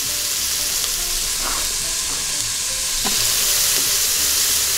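Diced onions sizzling in hot oil in an Instant Pot's stainless steel inner pot on sauté mode: a steady frying hiss, with a couple of faint ticks.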